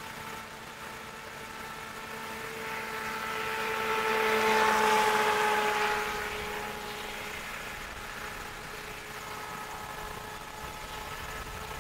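Hydropro Inception RC boat running on the water: a steady motor whine. It swells with a hiss of water as the boat passes close, about four to six seconds in, then drops back.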